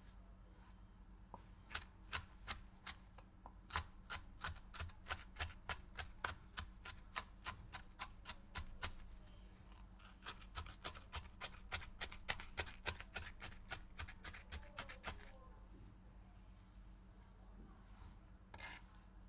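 Knife chopping a pepper on a cutting board in quick sharp strokes: a run of about three strokes a second, a short pause, then a faster run of about five a second that stops suddenly, with one last stroke near the end.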